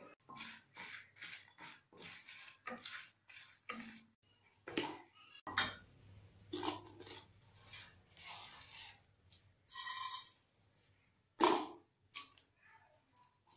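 Spatula stirring and scraping dry red chillies in a nonstick kadai: a run of short, irregular scrapes and rattles. About ten seconds in comes a single short ringing clink.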